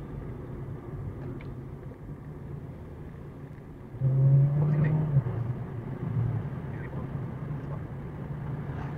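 Steady road and engine noise inside a moving car, picked up by a dash cam. About four seconds in, a louder low steady drone comes in for about a second, then eases back to the running noise.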